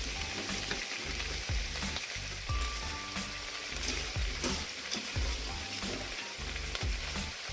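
Fresh water spinach sizzling steadily in hot oil and chili shrimp paste in a nonstick pot, with a low, regular beat underneath.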